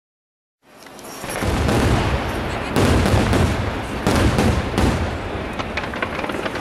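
Aerial fireworks display: shells bursting in a dense run of low booms and crackling, with several sharp reports about three to five seconds in. The sound fades in from silence just under a second in.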